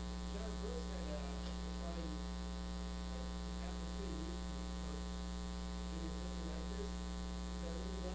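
Steady electrical mains hum with a long stack of overtones, with faint voices underneath.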